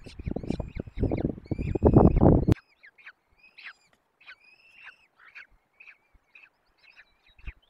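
Peregrine falcon chicks peeping with thin, high calls over loud rustling and knocking close to the nest microphone. The knocking stops abruptly about two and a half seconds in, leaving only quieter scattered peeps.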